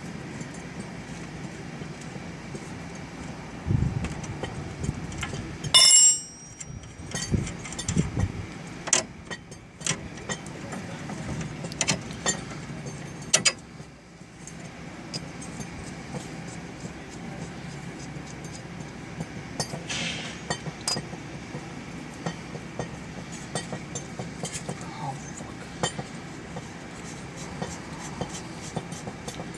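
Hand tools and metal parts clinking and knocking during work on a car's axle, with a loud ringing metal clank about six seconds in and scattered sharper knocks after it.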